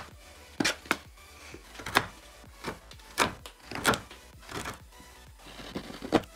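Background music under a series of irregularly spaced sharp knocks and clicks, about seven in six seconds.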